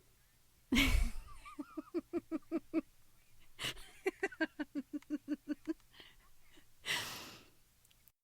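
A woman laughing long and hard: a sharp gasping intake of breath, then a run of quick, even 'ha-ha-ha' bursts. Another gasp follows, then a longer run of bursts, and a long noisy inhale near the end.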